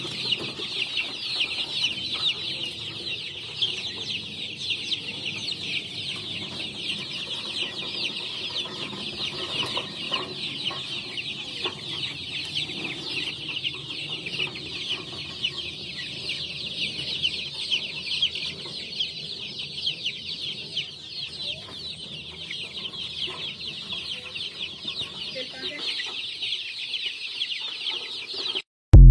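Many baby chicks peeping together in a dense, continuous chorus of short high falling cheeps, with occasional lower clucks from adult hens among them. The keeper takes the calling for hunger.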